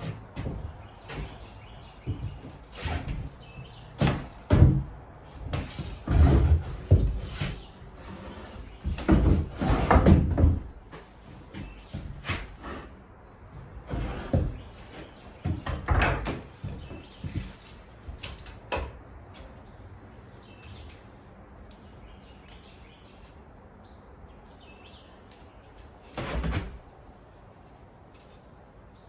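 Irregular wooden knocks, thumps and clatter, like two-by-six lumber being handled and set down, with the loudest thumps in the first half. The knocking dies away about two-thirds through, and one last thump comes near the end.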